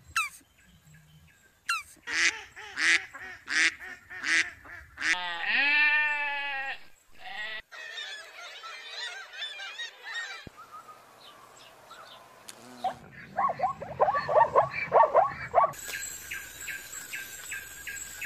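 A string of different animal calls cut one after another. First comes a quick series of short loud calls, then one long wavering call, then black-legged kittiwakes calling at their cliff nest with more rapid calls near the end.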